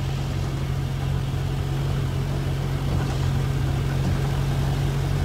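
The engine of the vehicle carrying the camera, running steadily at low speed as it moves slowly along a waterlogged road, heard from on board.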